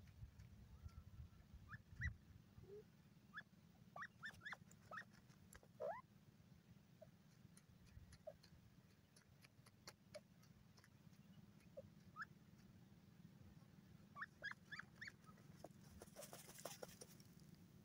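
Grey francolin giving short, faint, high call notes that sweep upward, singly and in quick runs of three or four, over a low steady background hum.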